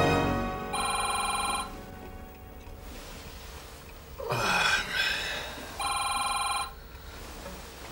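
A telephone ringing: two rings about five seconds apart, each just under a second of trilling tone. A brief noise comes between the rings.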